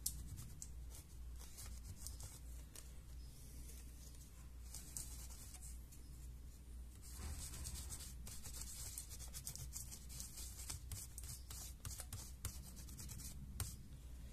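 Faint rubbing of a small cleaning pad wiping liquid metal thermal paste off a laptop GPU chip, in many short scratchy strokes.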